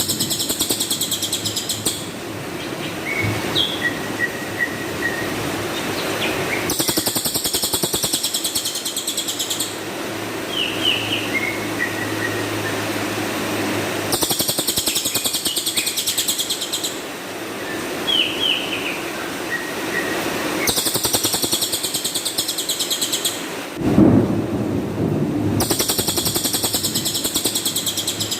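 Cililin (lesser racket-tailed drongo) singing: a harsh, very high, rapid rattling trill of about two seconds, the 'shot' (tembakan kasar), repeated five times about every six seconds, with short whistled chirps and slurred notes in between.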